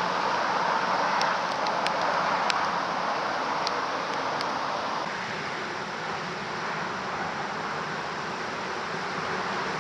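1945 GMC DUKW amphibious truck's six-cylinder engine running as the truck drives slowly across grass, heard as a steady rushing noise with a few faint clicks in the first half.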